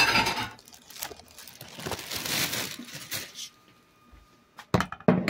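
Tin food cans being handled: a sharp knock with a brief metallic ring at the start, then crinkling and rustling, and a few quick clicks near the end.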